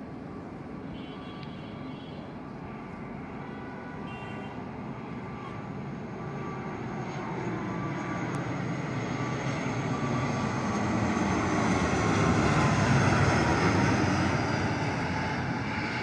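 Twin-turboprop airliner flying low on landing approach with its gear down. The engine and propeller drone builds steadily, is loudest about three seconds before the end as the aircraft passes close, and its tones slide down in pitch as it goes by.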